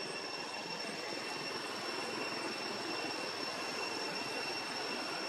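Steady forest background noise: an even hiss with two high, steady whines held unbroken throughout.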